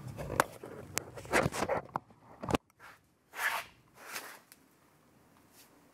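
Handling noise from a camera being picked up and repositioned: a string of sharp clicks and short scraping, rustling swishes, ending in a loud click about two and a half seconds in. After that only two brief rustles break the quiet.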